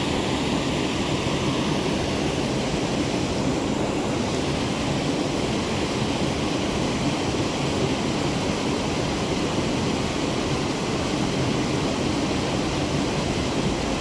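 Creek water rushing steadily over small rock cascades into a pool, a constant even roar.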